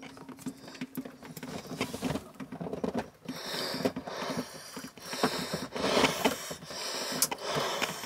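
Close handling noise: a fleece sleeve rubbing against the microphone, and a scatter of small clicks as hands work the spade connectors on a 12 V fridge compressor's control wiring. A faint steady hum sounds under it for the first three seconds or so, then stops.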